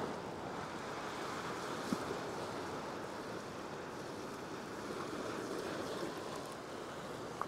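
Ocean surf washing and breaking against a rock shelf, a steady wash of waves, with one small click about two seconds in.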